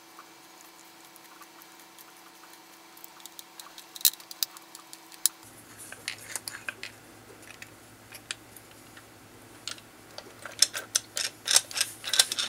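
Light clicks and taps of a screwdriver and small metal parts as a solenoid coil and its bracket are fitted onto a pinball flipper's metal base plate. The taps are scattered at first, with one sharp click about four seconds in, and come thick and fast over the last few seconds.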